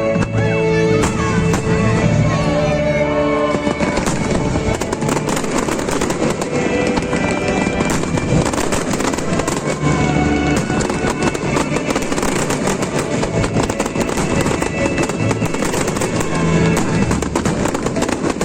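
Fireworks display: bangs and a dense crackle of bursting shells, thickest from about four seconds in, over loud music played for the show.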